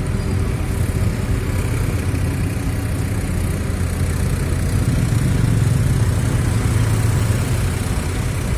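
Bus engine running steadily with a low, even rumble.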